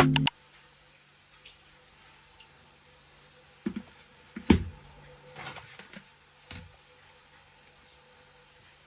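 Music cuts off right at the start, leaving faint room tone with a low steady hum, broken by a few soft knocks and clicks a little past the middle.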